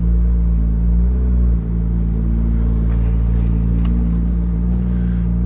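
Porsche 991.2 GT3 RS's naturally aspirated flat-six engine running at a steady pitch while the car is driven, with a brief dip in loudness about one and a half seconds in.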